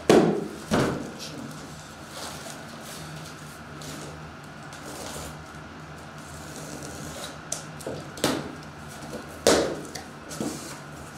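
Cardboard shipping box being handled and opened: two knocks at the start as it is set down, light scraping and rustling of the cardboard, then two louder rips near the end as the taped flaps are pulled open.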